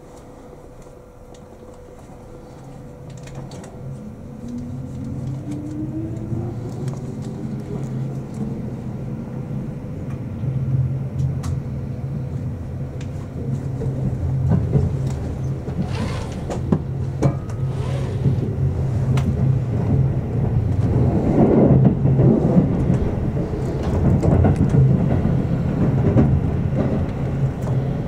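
Keihan 8000 series electric train heard from inside the passenger car as it pulls away and accelerates: a motor whine rises in pitch over the first several seconds, and the rumble of the wheels on the rails grows steadily louder, with sharp clicks and knocks as it runs over the rail joints and points.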